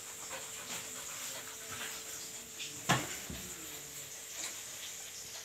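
Labrador retriever panting and sniffing as it moves about on a bare floor, with one sharp thump just before three seconds in, the loudest sound.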